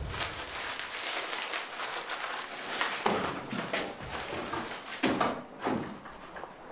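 Rustling and handling noise of things being moved about, with a few soft knocks around three and five seconds in, as items inside an open refrigerator are rummaged through.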